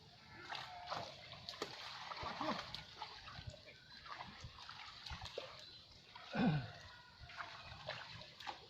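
Water splashing and sloshing at a fishing pond, with scattered sharp clicks. About six and a half seconds in comes a loud, short cry that falls in pitch, with a weaker one about two seconds in.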